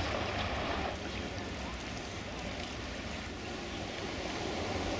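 Steady seaside ambience: the sea washing at the shore, with wind rumbling on the microphone.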